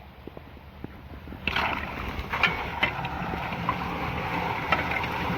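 Floodwater pouring into a street storm drain, a steady rushing splash that grows louder about a second and a half in.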